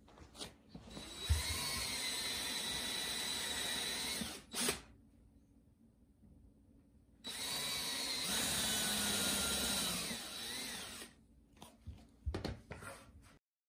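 DeWalt cordless drill boring holes into a plywood panel in two runs of about three to four seconds each, the motor whining steadily through each run. There is a short knock between the runs and a few light knocks near the end.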